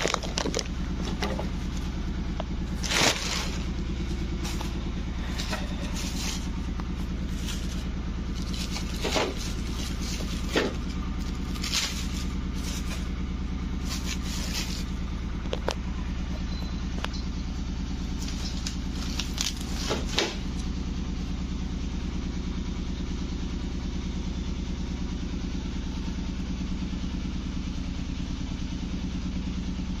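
Bubble-wrap packaging rustling and crinkling in a handful of short bursts as it is handled, over a steady low hum; the handling stops after about twenty seconds and only the hum remains.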